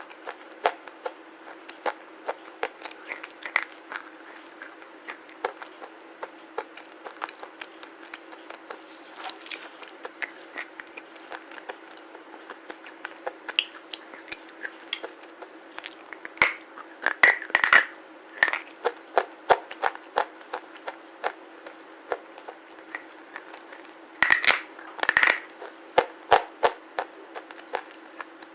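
Close-up biting and chewing of black slate bars: a run of sharp, gritty crunches, with louder clusters of bites about halfway through and again near the end.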